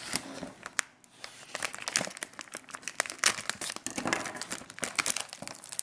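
Plastic packaging and an anti-static bag crinkling and crackling as hands pull a circuit board out of it. The crackles come in dense, irregular bursts, with a brief lull about a second in.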